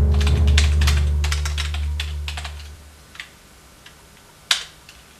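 Typing on a computer keyboard: a quick run of keystrokes under low music that fades out about three seconds in, then a few scattered key taps, one of them louder near the end.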